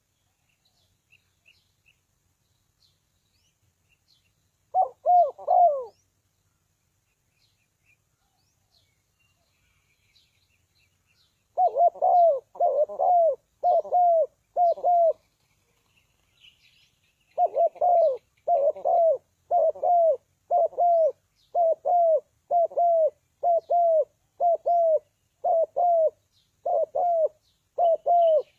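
Spotted dove cooing: short repeated coos that fall slightly in pitch, a brief cluster a few seconds in, then after pauses a long steady run of about one coo a second. Faint high chirps of small birds are heard behind.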